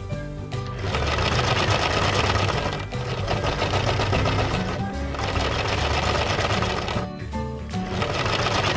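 Toy washing machine running, its small battery motor spinning the drum with a fast rattling buzz. It starts about a second in, stops briefly about seven seconds in, then starts again near the end.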